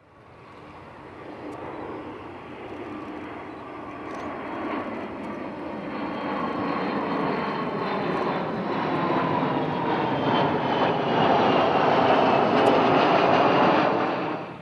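Boeing RC-135 Rivet Joint, a four-engined jet, flying past overhead: a jet engine rumble and whine that builds steadily louder, its tones slowly falling in pitch. It cuts off suddenly near the end.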